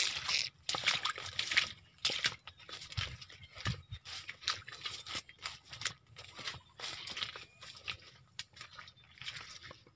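Maize leaves and dry lower stalks rustling and crackling as someone pushes through the rows, in short irregular crackles.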